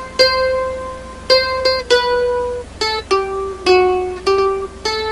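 Background music: a plucked string instrument picks out a slow melody one note at a time, about nine notes, each ringing and fading after it is struck.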